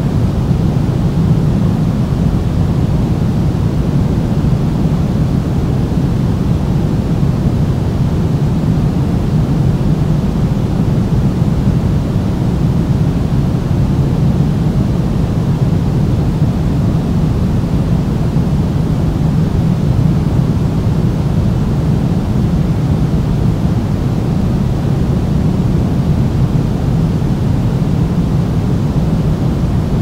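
Steady pink noise: a continuous, even hiss weighted toward the low end, with no change in level or character.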